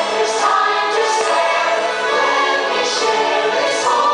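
Choral music with orchestra: a choir singing over held chords.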